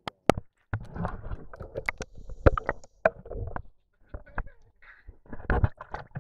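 Water sloshing and splashing against a camera held half-submerged at the surface, heard as irregular muffled splashes mixed with sharp clicks and knocks.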